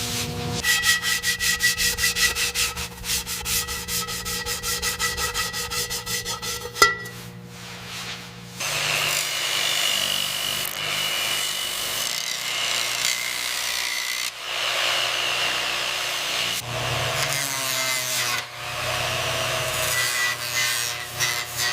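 Metal being worked by hand in quick, even back-and-forth strokes for about six seconds. Then, after a short pause, a power tool runs steadily with a faint high whine.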